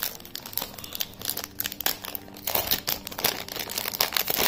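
Thin clear plastic packaging bag crinkling as hands open and handle it around a silicone watch strap. A fast, uneven run of crackles that grows louder about halfway through.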